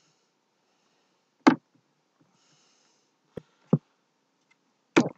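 A man sniffing softly through his nose, broken by four short, sharp sounds. The loudest of these comes about a second and a half in.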